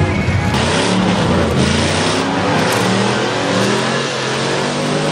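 Big-engined lifted mud truck revving hard, its pitch rising and falling again and again as it churns through deep mud, with a loud rushing hiss from about half a second in.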